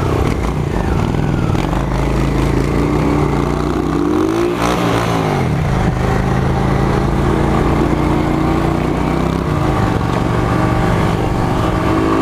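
1996 Honda CG 125's single-cylinder four-stroke engine running, its pitch rising and then falling once about four to five seconds in, with another change in note around ten seconds in.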